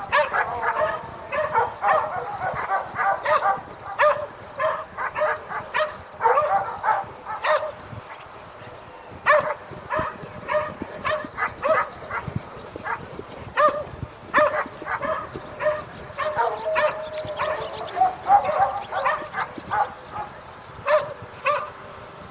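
Several dogs barking in the distance, short barks coming several a second in irregular runs, thinning out for a moment about eight seconds in, over a faint rural village ambience.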